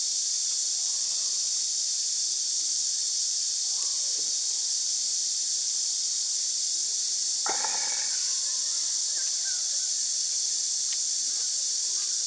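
A steady, high-pitched chorus of insects, with a brief snatch of faint voices about seven and a half seconds in.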